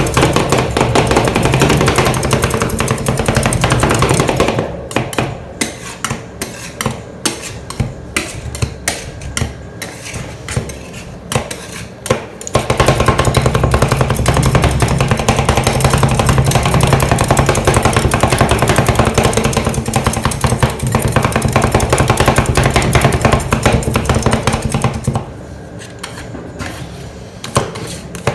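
Metal spatulas scraping and tapping on a stainless steel ice cream cold plate. Steady scraping at first, then a run of sharp taps about once or twice a second from about five seconds in, then long scraping strokes again from about twelve seconds in as the frozen sheet is pushed up into rolls.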